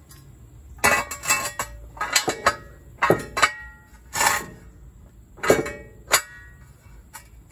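Pro-Lift steel jack stand being set down on concrete and its ratchet saddle pulled up: a run of irregular metallic clanks and clicks, some with a short ring.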